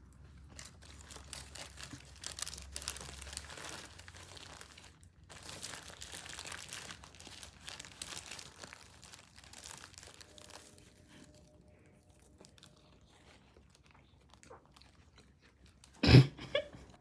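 Someone biting into and chewing a chicken St. Paul sandwich close to the microphone, with crunching and crinkling that ease off after about ten seconds. A short loud thump near the end.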